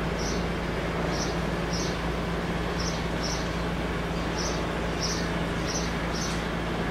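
Clausing Colchester engine lathe running with a steady hum and a constant low tone. Short high chirps repeat irregularly over it, about two a second.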